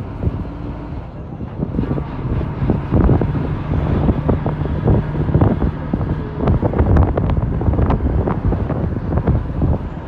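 Wind buffeting a phone microphone held at a moving bus's window, in irregular gusts and thumps over the low, steady rumble of the bus.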